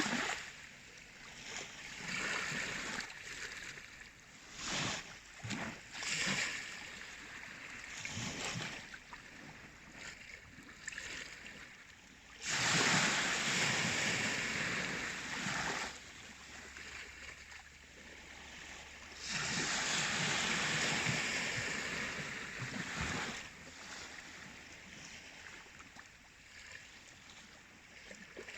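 Baltic Sea waves washing in and out, with an irregular surf that swells and ebbs. Two longer, louder surges come in the second half.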